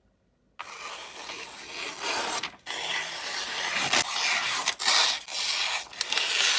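Spyderco knife blade being sharpened by hand on an abrasive: gritty rubbing strokes that start about half a second in, separated by brief breaks.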